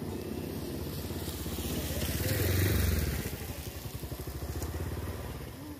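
A motorcycle engine coming up close and passing, loudest a little before halfway through, then running lower and fading off near the end.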